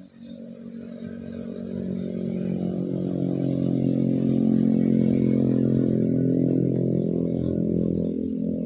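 An engine running at a steady pitch, growing louder over the first few seconds and then holding, cut off abruptly near the end.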